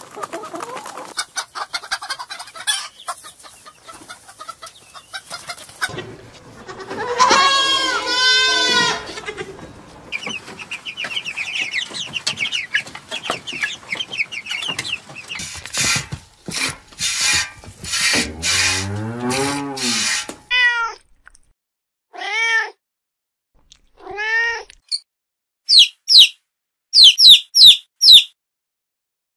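Chickens clucking and calling, with several long, arching calls through the middle. Near the end, a newly hatched chick peeps in short, sharp high chirps.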